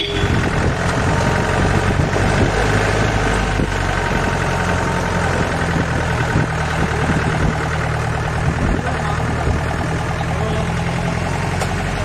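4x4 jeep's engine running steadily.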